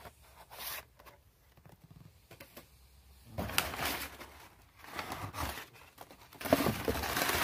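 Close rustling and crumpling handling noise in several bursts from about three seconds in, loudest near the end, after a few small clicks.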